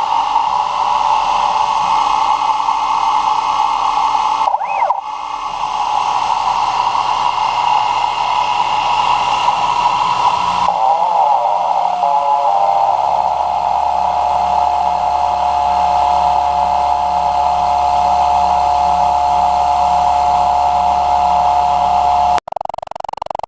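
Grizzly G0704 CNC mill running a job: a steady spindle whine with the hiss of a 1/4-inch end mill cutting aluminum. About ten seconds in the hiss drops away, leaving a steadier whine and a low hum, and the sound cuts off suddenly near the end.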